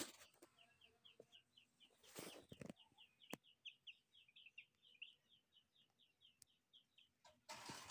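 Muscovy ducklings peeping: a quick run of short, high peeps, about four or five a second. Brief bursts of noise come about two seconds in and near the end.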